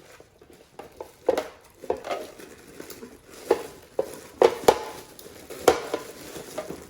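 Food storage containers and their lids and basket inserts being handled: a series of irregular light knocks and clacks, about one or two a second.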